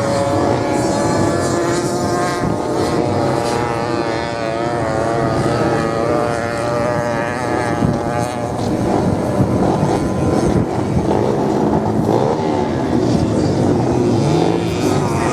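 Several racing motorcycles running on the sand together, their engines overlapping and rising and falling in pitch as they rev and pass.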